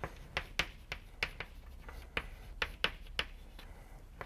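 Chalk writing on a blackboard: a quick, irregular run of sharp taps and short scratches as the words are written.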